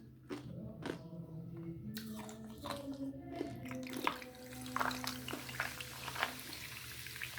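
Ice being crunched and chewed in the mouth: irregular sharp crunches, a few clearly louder, around five to six seconds in.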